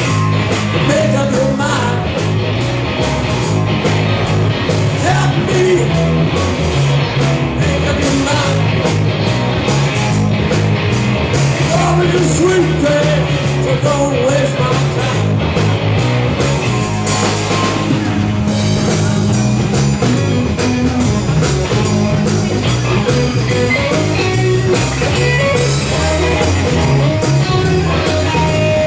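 Rock music with a steady beat: drums, bass, electric guitar and a singing voice, playing without a break.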